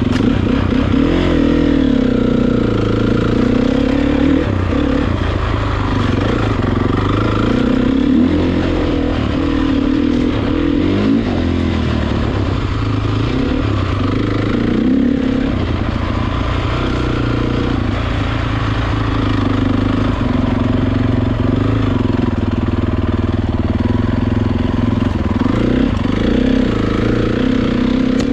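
Dirt bike engine running under way, its pitch rising and falling again and again as the throttle is opened and closed.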